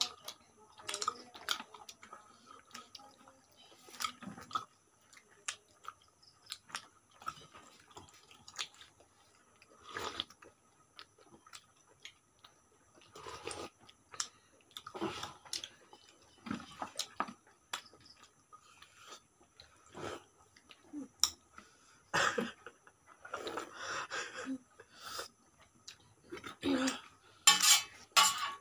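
Eating by hand from a stainless steel plate of chicken curry: scattered short clinks and scrapes of fingers and the plate on the table, with soft eating sounds in between.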